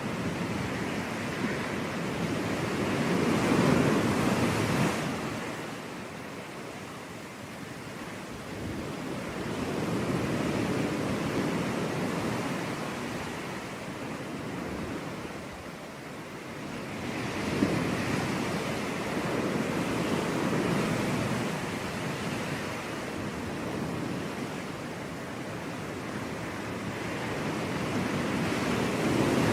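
Sea waves breaking and washing onto a beach, the surf swelling and fading in slow surges several seconds apart.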